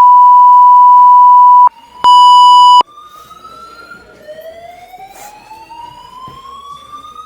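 Building fire alarm sounding: a very loud steady beep tone that runs until nearly two seconds in, then one shorter beep, followed by quieter slow rising whoop sweeps, each several seconds long, of the evacuation tone.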